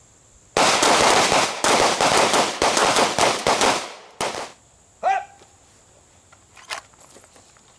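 Pistol fire from several shooters on a firing line, shots overlapping in a dense rapid string for about three and a half seconds, then one more shot. A short shouted call follows about five seconds in.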